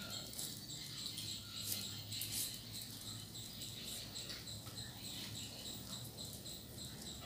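Plastic basket wire rustling and crackling as it is handled and pulled through the weave. Behind it, a steady high chirping repeats about four times a second.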